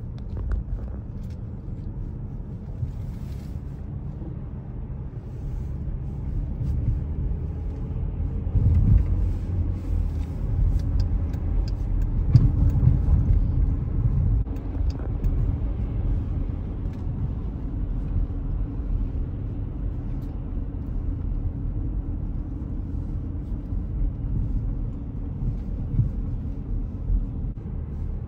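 Car driving, heard from inside the cabin: a steady low rumble of engine and tyres on the road, swelling a little midway.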